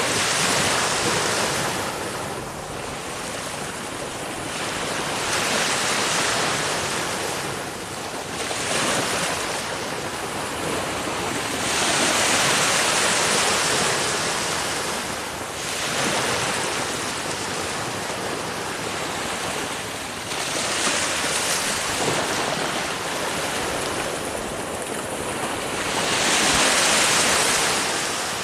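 Ocean waves breaking: surf surging and easing every few seconds.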